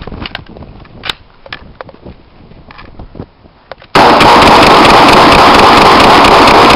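M4 carbine firing right beside the microphone from about four seconds in, the shots overloading the recording into one continuous distorted roar. Before that, scattered sharp gunshot cracks from other rifles on the range.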